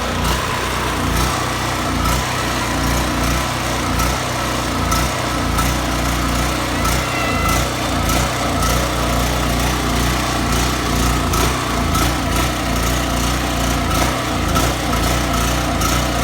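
Harbor Freight Predator generator's gasoline engine running steadily with the choke off, its carburetor freshly cleaned with the main jet and passages blown out.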